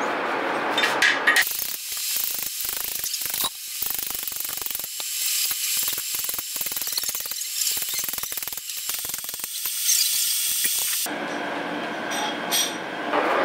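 Metal tool work at the camshaft bushing bore of a cast-iron D115 engine block: rapid, irregular metallic clicking and rasping over a steady high hiss. The hiss starts about a second and a half in and stops about eleven seconds in.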